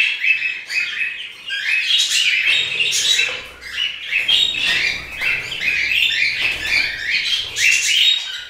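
Small pet parrots chirping: rapid short, high calls, several a second, dipping briefly a little before halfway.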